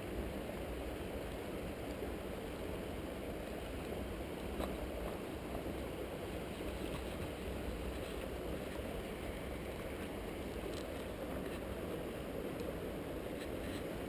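Steady outdoor background noise, a low rumble with a light hiss over it, with no distinct events.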